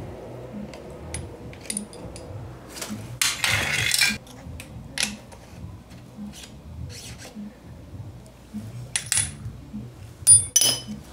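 Metal suspension-linkage hardware on a mountain bike being worked loose by hand: scattered light clicks, a longer scrape about three seconds in, and two bright metallic clinks near the end as the pivot hardware and link come free.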